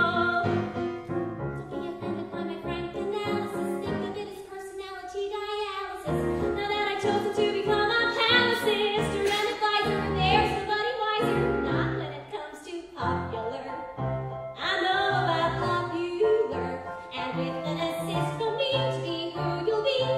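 A woman singing a musical-theatre song in a trained voice, accompanied by a live band with trombones; the band thins out briefly twice between phrases.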